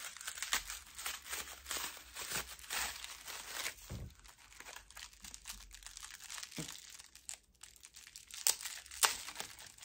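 Paper packing wrap crinkling and tearing as a wrapped crystal is opened by hand, a steady crackle with two sharper, louder crackles near the end.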